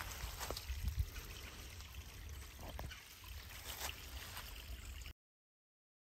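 Shallow creek water trickling faintly over rock, with a low rumble and a few soft knocks; the sound cuts off to dead silence about five seconds in.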